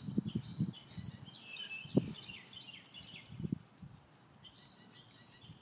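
Small birds chirping repeatedly in the background, with a few dull low thumps, the loudest about two seconds in.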